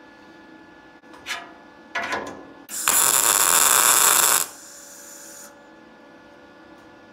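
A MIG welder laying a single tack weld: a loud, even crackling hiss about three seconds in that lasts about a second and a half, then stops suddenly. A few short knocks and handling sounds come just before it.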